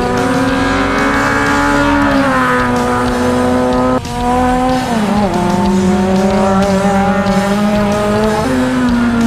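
Honda Civic race cars' four-cylinder engines running at high revs as they pass, the pitch held steady, then dropping as the driver lifts off. The engine note changes abruptly about four seconds in as a different car takes over.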